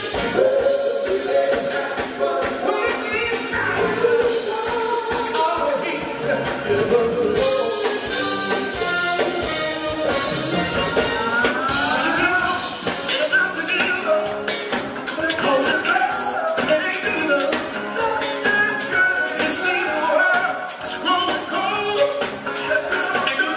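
Live Motown-style soul music: a male vocal group singing over a band with keyboards, saxophone and drums keeping a steady beat.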